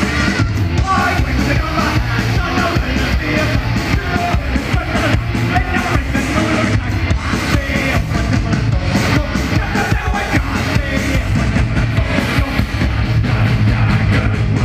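Live heavy punk-metal band playing loud: distorted electric guitars, bass and pounding drums with shouted vocals, heard from within the crowd.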